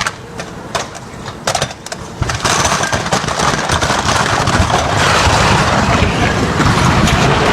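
Loaded grain silo giving way: a few sharp cracks, then about two seconds in a loud, sustained rush of noise as the structure fails and its grain pours out.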